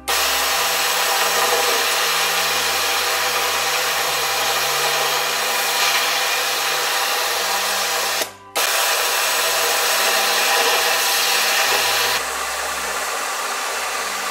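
Global CB 3700-series cylinder-arm chainstitch sewing machine running at high speed, a steady whirring hiss. It stops for about half a second roughly eight seconds in, then sews on, a little quieter over the last couple of seconds.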